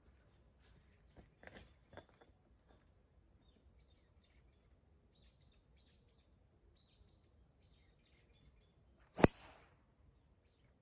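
A driver striking a golf ball off the tee: one sharp, loud crack about nine seconds in. Faint bird chirps sound in the seconds before it.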